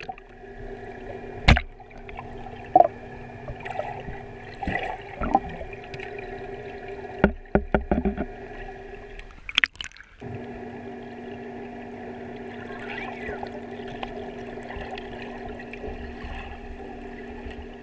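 Muffled sound heard underwater in a swimming pool: a steady machine hum made of a few fixed tones, carried through the water. Scattered knocks and bubbling come through it, with a quick cluster of knocks about seven to eight seconds in. The hum drops out briefly near ten seconds.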